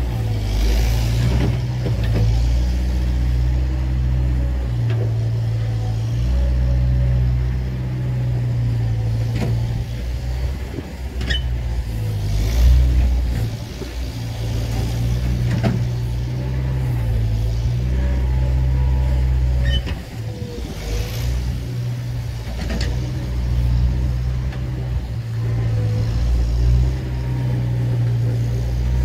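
Bobcat skid-steer loader's engine running under varying load, its low rumble swelling and easing, with a few sharp knocks.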